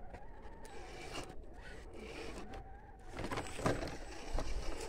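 Radio-controlled scale off-road model driving: a small electric motor whining and tyres scraping and crunching over dirt and stones. The scraping gets louder about three seconds in.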